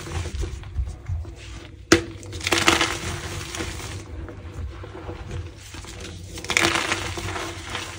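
Crunchy slices of gym chalk dusted with Holi powder being crushed: a sharp crack about two seconds in, then crunching and crumbling, with another burst of crunching near the end.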